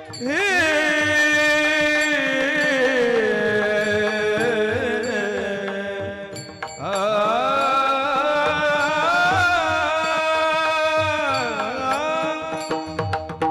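A male kirtan singer holding long, wavering notes of a Varkari kirtan melody, with a short breath break about six and a half seconds in. Mridang strokes run underneath.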